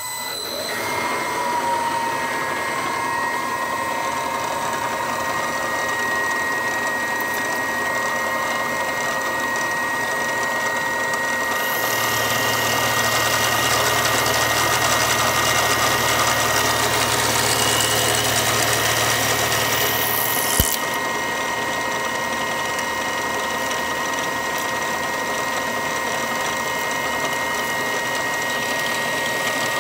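CNC milling machine spindle starting up and running with a steady whine while a 2-flute 13/16 inch end mill cuts a counterbore into a 15 series 8020 aluminum extrusion, with constant cutting noise. From about twelve seconds in, a low hum and a brighter hiss join for about nine seconds and stop with a sharp click.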